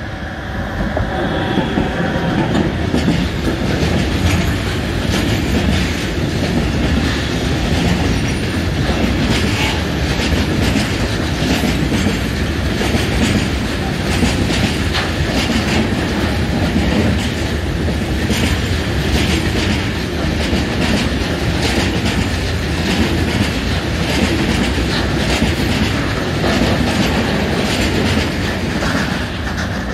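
Electric locomotive passing close by at the head of a long freight train of tank wagons, then the wagons rolling past with a steady rumble and frequent clickety-clack of wheels over the rail joints.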